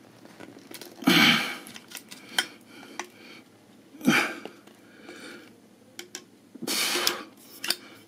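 Scattered handling sounds: a few short rustles and light clicks, the loudest about a second in and again near seven seconds.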